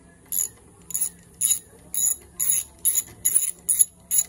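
Hand socket ratchet clicking in short bursts, about two a second, as it is swung back and forth to undo the motorcycle's clutch-lever clamp bolt.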